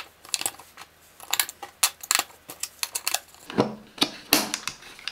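Irregular small clicks and knocks of AA batteries being pressed into the plastic battery compartment of a digital alarm clock.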